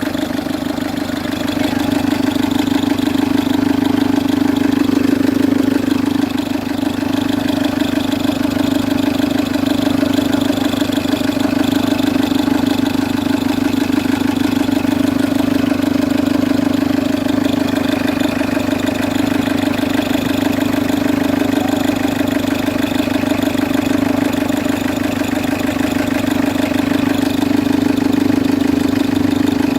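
Citroen C3 HDi diesel engine idling with a loud steady noise from the auxiliary (serpentine) belt and its tensioner: the tensioner is worn and due for replacement along with the belt.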